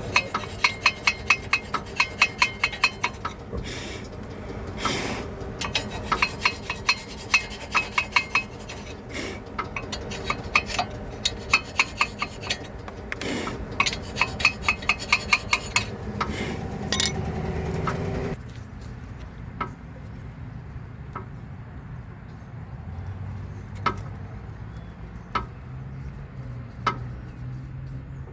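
Hand-tool work on a car's disc brake assembly: bursts of rapid metallic clicking and scraping for the first two-thirds, then it quietens to only occasional single clicks.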